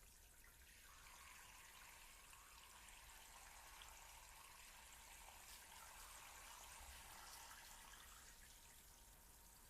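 Faint ASMR ear-cleaning sounds on the microphone: a soft, fine crackly rustle that comes in about a second in and fades near the end.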